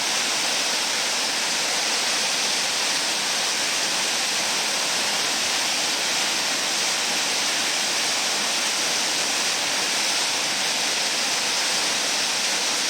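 Siffleur River rushing steadily past the bank, an even, unbroken roar of fast-flowing water.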